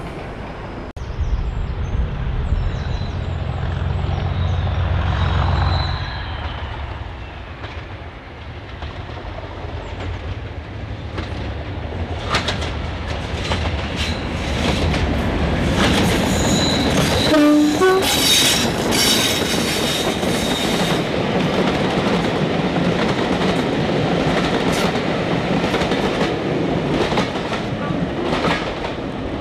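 English Electric Class 37 diesel locomotive running past while hauling a passenger train: a heavy engine rumble, then wheels clicking over rail joints with a high squeal. A short horn blast sounds about halfway through.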